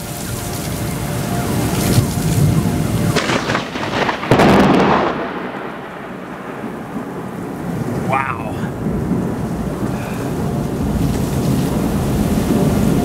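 Heavy rain pouring down in a thunderstorm, with thunder rumbling. The thunder swells to its loudest about four seconds in, then dies away.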